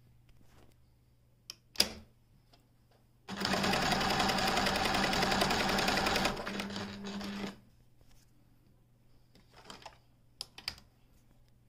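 Pfaff Creative 1469 computerized sewing machine stitching through fabric: a sharp click about two seconds in, then the motor and the rapid clatter of the needle strokes for about three seconds. It runs more quietly for about another second before stopping, with a few light clicks near the end.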